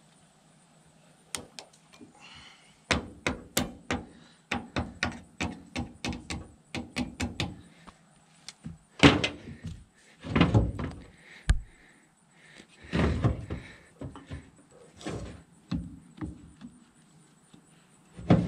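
Metal knocking while a drive shaft's U-joints are worked on: a quick run of sharp taps, about three to four a second, then several heavier clunks and thuds.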